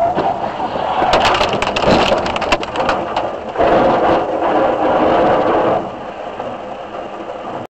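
Vehicle collision close by, heard through a dashcam's in-car microphone: about a second in, a rapid string of sharp cracks and crunching for about a second and a half, then a louder rough noise for about two seconds that dies down before the sound cuts off suddenly near the end.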